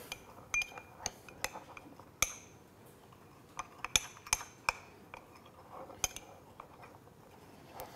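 Small metal whisk stirring in a small glass bowl, its wires clinking against the glass in scattered light ticks.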